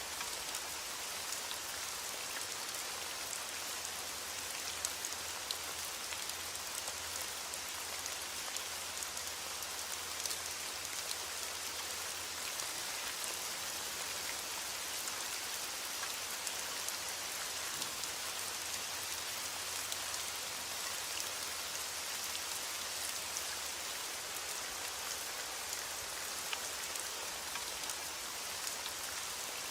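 Steady rain falling: a dense, even hiss with many small sharp drop ticks scattered through it.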